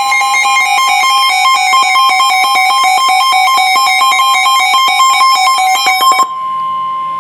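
Weather-radio receivers sounding their loud electronic alert beeps over the NOAA Weather Radio warning alarm tone as a new alert comes in. The rapid beeping cuts off about six seconds in, leaving the single steady alarm tone.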